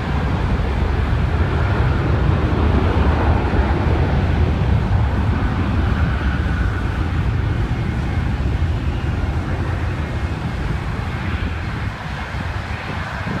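Jet engine rumble of a departing Boeing 737-800 with CFM56-7B turbofans: a deep, steady roar that peaks a few seconds in and then slowly fades as the plane moves away.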